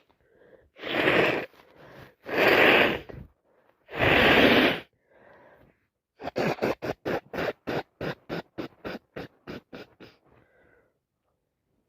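Nose blown hard three times, each blast under a second long, then a quick run of short nasal puffs, about four a second, growing fainter over some four seconds: a head cold.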